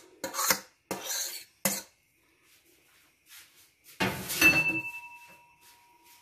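A metal utensil scraping mashed roasted eggplant off a plate into a bowl, about five quick scrapes. About four seconds in comes a loud clatter of kitchenware being set down, ringing on thinly for about two seconds.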